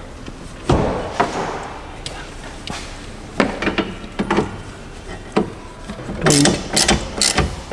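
Irregular knocks, clicks and rubbing from hand tools and parts being handled in a Ford Focus ST's engine bay, with a quicker run of knocks near the end.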